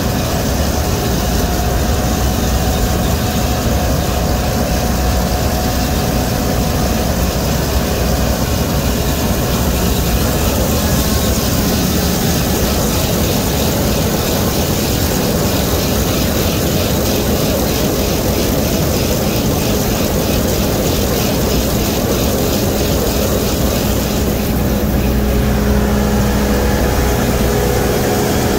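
Fendt Ideal 9 combine harvester running steadily under load as it picks up swathed barley with its pickup header and feeds it through the header auger. A loud, even machine noise with a few steady hum tones under it.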